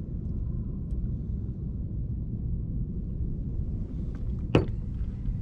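Steady low rumble with no clear pitch, like wind on a microphone or a distant engine, and a single sharp knock near the end.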